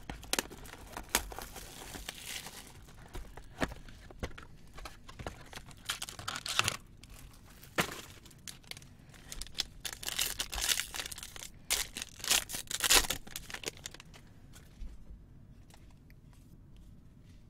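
Plastic and foil wrapping being torn and crinkled as a trading card box and its foil pack are opened, in irregular crackling bursts that are loudest in the middle and die down near the end.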